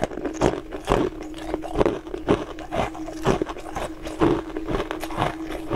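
Ice being crunched and chewed in the mouth, with sharp crunches coming irregularly about twice a second.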